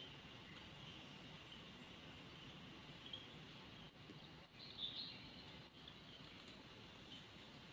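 Faint bird chirps: a few short, high calls over a steady faint outdoor background, the loudest cluster about five seconds in.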